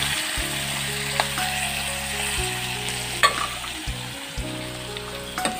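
Fish frying in hot oil in a wok, sizzling steadily, with a couple of light taps from the metal spatula.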